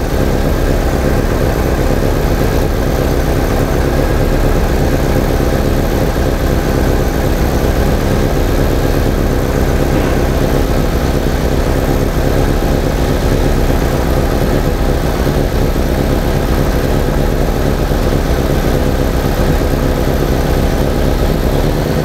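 1987 VW Vanagon's gasoline engine idling steadily with a ballast resistor in the ignition coil circuit. The resistor has stopped the coil multi-striking, so the engine runs better and smoother instead of misfiring.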